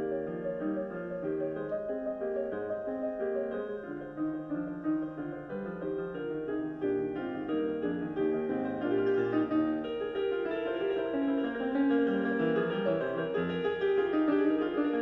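Piano music played back through a Western Electric TA8002 loudspeaker system.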